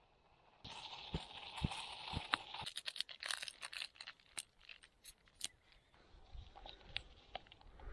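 Wrapper of a small coffee sachet crackling and crinkling as it is torn open and emptied into a steel mug, with a dense run of crackles in the middle and a few softer clicks near the end. A steady hiss runs under the first few seconds.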